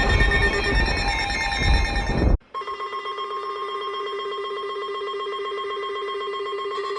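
Loud music cuts off abruptly about two and a half seconds in. Weather radios' electronic alert tones then sound for the Required Weekly Test: a steady tone, with a second, pulsing tone joining near the end.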